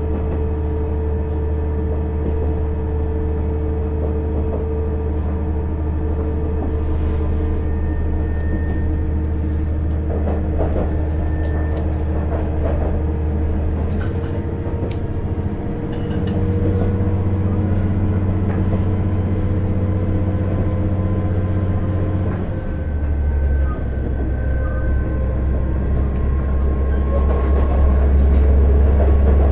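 KiHa 110 diesel railcar running uphill on a steep mountain grade, its diesel engine working hard under a steady hum with wheel-on-rail noise. The engine note shifts about halfway through and again some seven seconds later, getting louder near the end.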